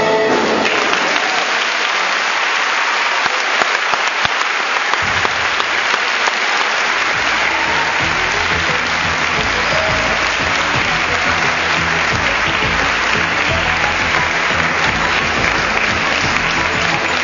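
Audience applauding steadily as the music breaks off, with the applause continuing unbroken.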